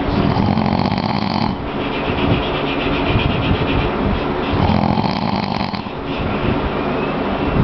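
A man snoring heavily in his sleep: about two snoring breaths, each a shorter harsh snore followed by a longer rattling one.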